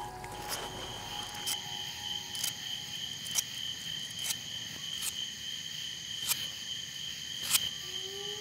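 Crickets chirring in a steady, high trill, with a short sharp scrape about once a second from a knife being sharpened by hand.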